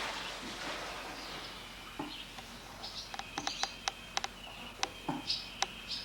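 Small birds chirping: short, sharp high-pitched calls coming in quick clusters through the second half.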